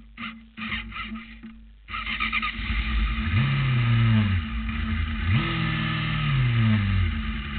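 Formula SAE race car's engine starting about two seconds in, then idling with two throttle blips, each rising and falling in pitch over a second or so.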